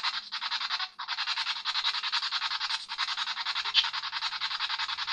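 Choppy electronic static, a steady hiss pulsing about eight to nine times a second, with brief dropouts about a second in and near three seconds.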